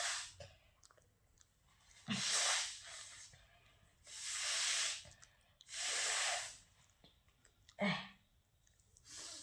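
A person forcing strong blasts of air through the nose, four times at roughly two-second intervals: three long, rushing bursts about a second each, then a short, sharp one near the end, with a fainter puff just after.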